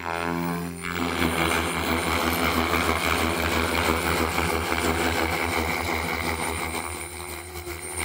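OMPHOBBY M4 Max electric RC helicopter in flight: rapid rotor-blade chop under a steady high whine.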